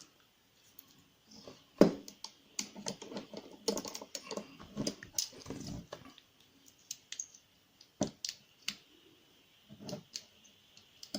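Small sharp metallic clicks and scrapes of a thin lock pick working inside a handcuff lock: a busy run of irregular clicks in the first half, then a few single clicks.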